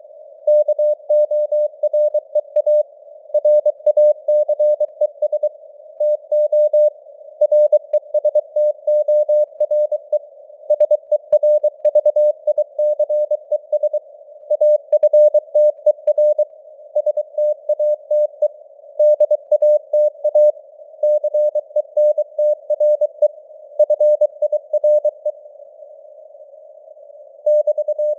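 Morse code (CW) sent at 23 words per minute as a single pitched beep tone keyed on and off, with radio hiss around it and signal strength that fades up and down. The keying pauses for about two seconds near the end, leaving only the hiss.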